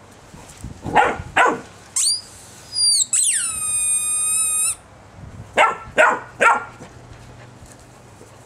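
Rubber squeaky ball squeaking twice, first a short high squeak and then a longer, lower one about a second and a half long. A puppy yaps twice before the squeaks and three times after.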